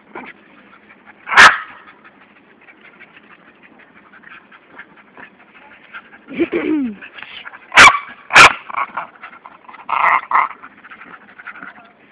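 A dog barking: a sharp bark about a second in, a short whine falling in pitch around the middle, then two barks in quick succession and a few yips near the end.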